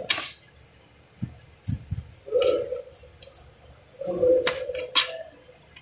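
Small knife cutting a lemon on a plate: a few sharp clicks as the blade meets the plate, the last two close together near the end. Between them are two short low humming sounds, the loudest things in the stretch.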